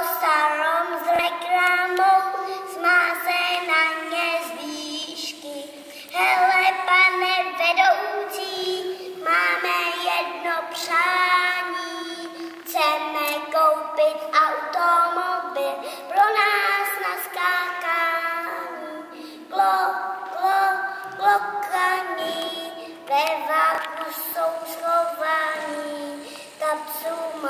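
A young boy singing a song solo, in phrases a few seconds long with short breaks between them.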